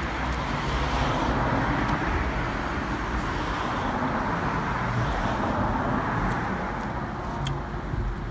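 Street traffic: a passing vehicle's engine and tyre noise, swelling over the first second, holding steady, then easing off near the end.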